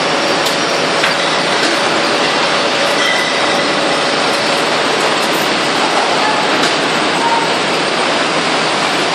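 Bottling-line machinery running: crate and carton conveyors and a case packer moving glass bottles. The result is a loud, continuous clatter with scattered sharp clinks.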